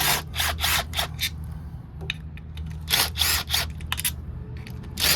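Hand tools working bolts on a small ATV engine: short quick bursts of clicking and scraping in a few clusters, over a steady low hum.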